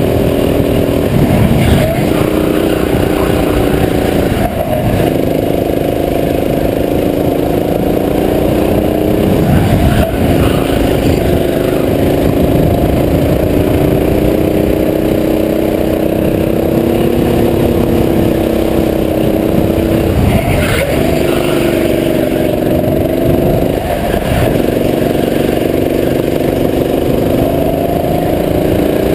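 Go-kart engine running hard, close up from the driver's seat, its note rising with speed; about five times the note drops briefly as the kart eases off and then climbs back.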